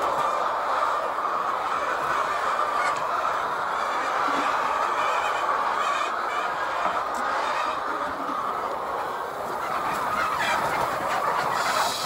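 Large flock of laying hens crowded in a poultry house, clucking in a steady, dense chatter.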